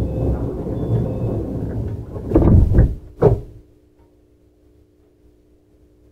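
Sliding passenger doors of a JR Central 315 series train: a rumbling slide that ends in two heavy thuds about two and a half and three seconds in, leaving only the train's low steady hum.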